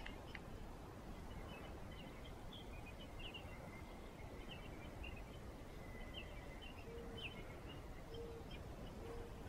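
Faint outdoor ambience with scattered, high, brief bird chirps, and three short low notes about a second apart near the end.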